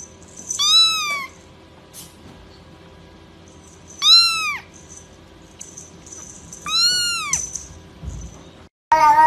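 A young grey kitten meowing three times, short high-pitched cries that each rise and fall, a few seconds apart. Near the end a different, louder cat call begins.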